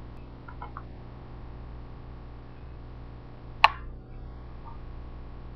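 Steady low electrical mains hum, with one sharp click about three and a half seconds in.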